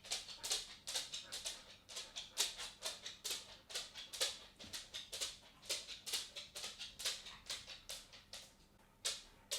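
A cat walking: a quick, irregular run of short, soft, scratchy footfalls, several a second, with a brief pause near the end.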